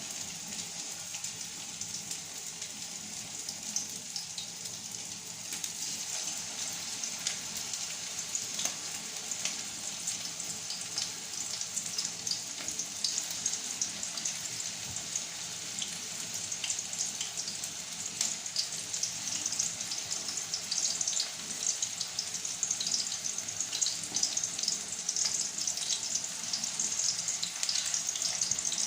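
Meatballs frying in hot oil: a steady sizzling hiss with many small pops and crackles, growing a little livelier toward the end.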